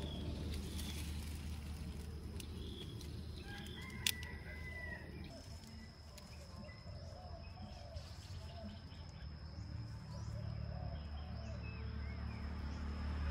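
Faint chickens clucking and calling over a steady low rumble, with one sharp click about four seconds in.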